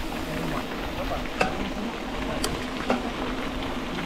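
Steady crackling hiss of a car on the move, over a low rumble, with a few sharp ticks about a second and a half and two and a half seconds in.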